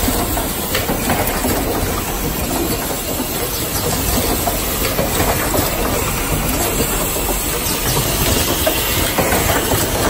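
Automatic power-cord plug crimping and insertion machine running: a steady mechanical clatter with a hiss of compressed air from its pneumatic cylinders.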